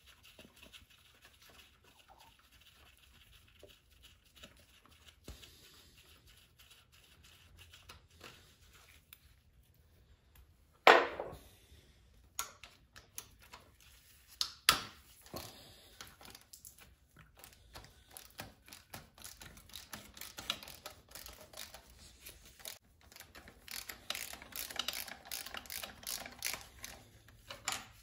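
Socket ratchet clicking in quick runs as the fuel pump mounting bolts are loosened, with a sharp metal clank, the loudest sound, partway through and a second one a few seconds later.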